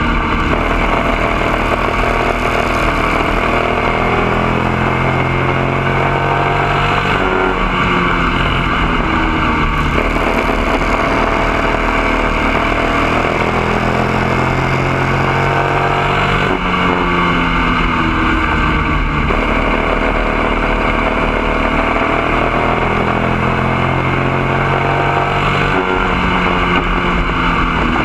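Bandolero race car's small engine running hard at racing speed, heard from inside the cockpit. Its pitch climbs steadily for several seconds, then drops sharply, and the cycle repeats about every nine seconds.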